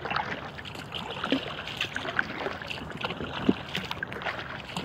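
Kayak paddling on an inflatable kayak: water splashing and dripping at irregular moments as the paddle blades dip in and lift out.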